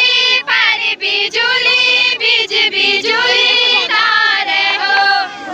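Women singing a Kumaoni chanchari folk song together, in held, gliding phrases with short breaks between lines.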